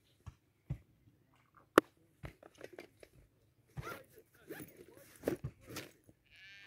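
Rummaging in a backpack: irregular rustling and crinkling of the bag and its contents, with a single sharp click about two seconds in.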